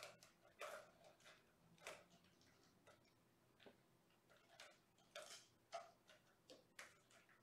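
Faint, irregular taps and scratches, about one or two a second, from a kitten playing on a small carpeted cat tree and batting its ball toy.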